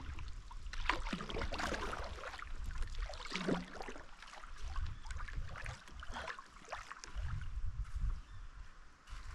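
Paddle strokes splashing in lake water, irregular, with wind rumbling on the microphone underneath.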